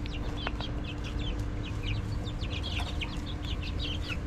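Young chickens peeping: a steady stream of short, high chirps from several birds at once, with a faint steady hum underneath.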